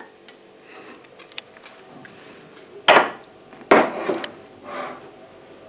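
A vase of tulips being set on a wooden wall shelf: two sharp knocks a little under a second apart near the middle, then softer shuffling as it is nudged into place.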